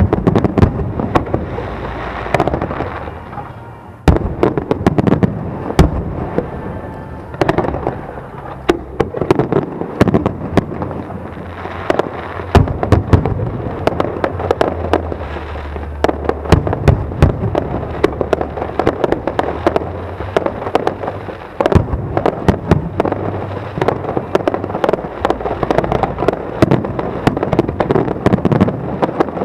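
Aerial fireworks in a continuous barrage: shells bursting one after another with heavy bangs every few seconds and constant crackling between them.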